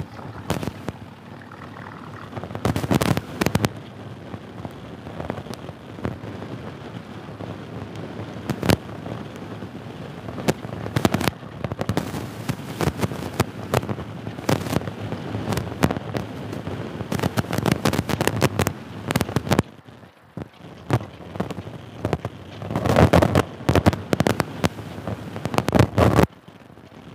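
Raindrops hitting the microphone while riding a motorcycle in the rain, making irregular sharp cracks and pops over a steady rush of wind and road noise. The pops come thickest about three seconds in and again near the end.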